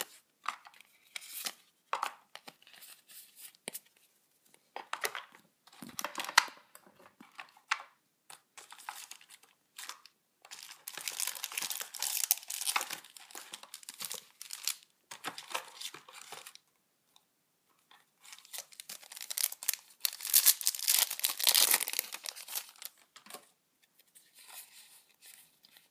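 Hands tapping and shuffling trading cards with small clicks. Then a foil Yu-Gi-Oh! booster pack wrapper crinkles and is torn open, in two long rustling stretches, about ten and about twenty seconds in.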